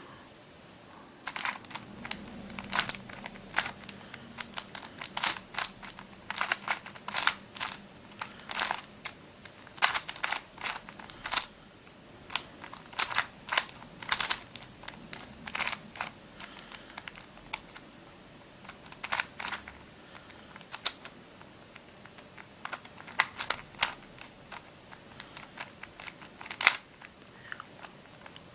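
Plastic pieces of a Witeden 2x2x3 Camouflage II shape-shifting twisty puzzle clicking irregularly as its layers are turned to scramble it, with quick runs of clicks and short pauses between them.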